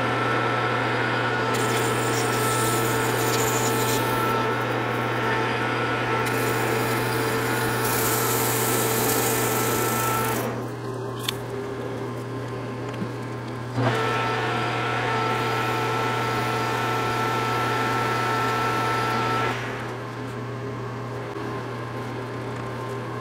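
Metal lathe running with a steady whine while turning a 6061 aluminum bar down to its major diameter. The sound drops away about ten seconds in, comes back about three seconds later, and drops again near the end.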